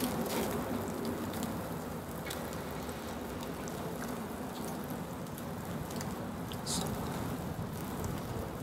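Steak sizzling on a wire grate over charcoal in a tabletop ceramic grill: a steady hiss with scattered small pops and crackles, one sharper crackle near the end.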